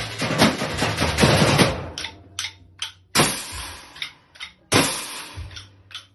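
Drums played live: a fast, dense run of strikes for about two seconds, then a handful of separate loud hits that ring out with a bright wash.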